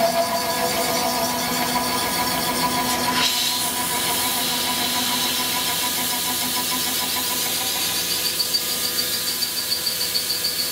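Tormach PCNC 1100 milling machine running a 4-inch side milling cutter through aluminum under flood coolant: a steady machine whine with several held tones over a hiss. A short sharp noise comes about three seconds in, after which the hiss grows; the lower tones fade toward the end.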